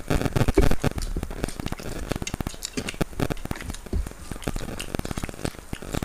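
Close-up eating sounds: fingers squishing and mixing rice with masala on steel plates, along with chewing and mouth noises. It comes as a dense, continuous patter of small wet clicks and crackles.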